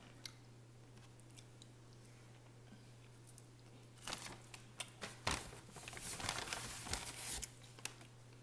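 Paper napkins rustling and crinkling as they are handled, starting about halfway in: a few seconds of crackling with sharp clicks after a near-quiet start.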